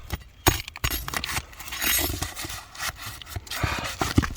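Scraping and clicking of hand work on an asphalt shingle roof, as chunks of old shingle are scraped and pried out from under the shingle above to get at the nails. Several sharp knocks, with the longest stretches of scraping about two seconds in and again near the end.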